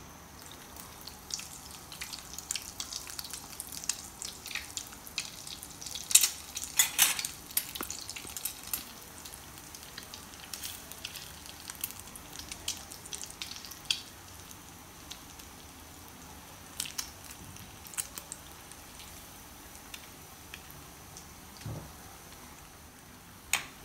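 Egg-coated bread rolls deep frying in hot oil: a steady sizzle with irregular crackles and pops, a few louder ones about six to seven seconds in.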